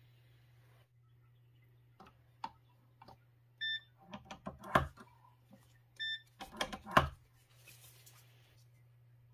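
Two short electronic beeps from a digital lensmeter, about two and a half seconds apart. Around them are clicks and louder knocks of a spectacle frame being clamped and handled in the instrument.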